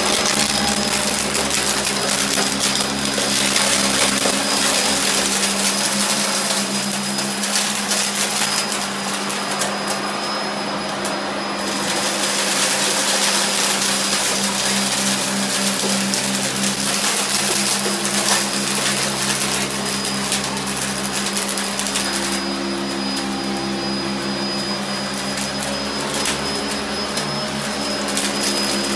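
Sanitaire upright vacuum cleaner running steadily: a constant motor hum with a thin high whine.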